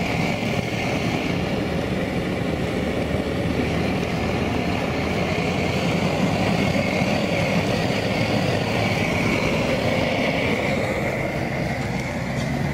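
Propane burner under a crawfish boil pot running with a steady rushing noise.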